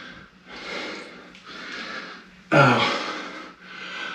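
A man breathing hard, a series of long, heavy breaths from the exertion of squats, with a louder pained 'ow' about two and a half seconds in.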